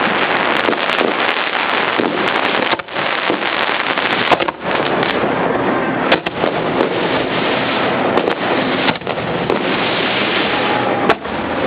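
Aerial fireworks, heard up close from the launch barge, launching and bursting in a dense continuous barrage of bangs and crackling, with a few brief lulls.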